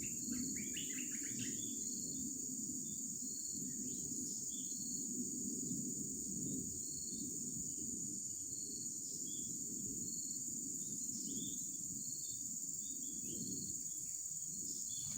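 Insects, such as crickets, droning steadily and high, with a short chirp repeating about once a second, over a low steady rush of river water. A brief flurry of bird-like chirps comes about a second in.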